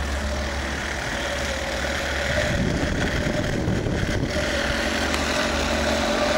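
Model diesel locomotive on a garden-scale railway, running along the track: a steady whine from its electric motor over a low rumble, a little louder from about two and a half seconds in.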